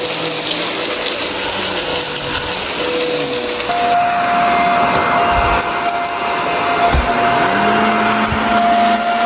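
Vacuum cleaner running steadily, its motor whining under a steady rush of suction noise. About four seconds in the sound changes abruptly to a different, higher whine, with a few low knocks after it.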